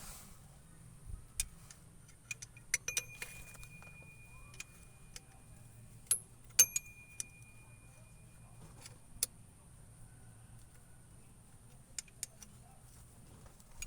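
Metal hand tools clinking against metal parts in irregular clicks and knocks. Two of the strikes ring on briefly with a thin metallic tone.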